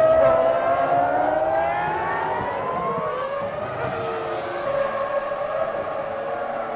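Formula One cars' 3-litre V10 engines running at high revs, several high-pitched engine notes overlapping, rising over the first couple of seconds and then dropping about three seconds in as the cars pass and shift.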